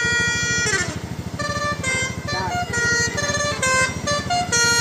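Bus telolet horn playing a tune: one note held for under a second, then a run of short notes stepping up and down in pitch, over a low rapid pulsing.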